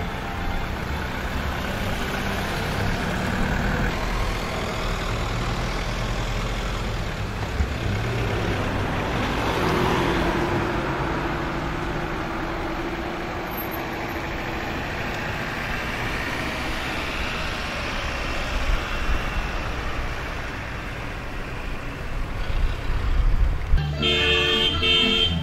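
A line of cars driving past on the road, a steady wash of engine and tyre noise that swells as vehicles go by, most clearly about ten seconds in.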